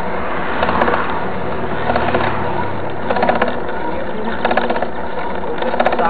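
Mountain bike rolling on an asphalt road with a steady rushing noise. Short bursts of rapid rattling clicks from the bike come about every second and a quarter, five times.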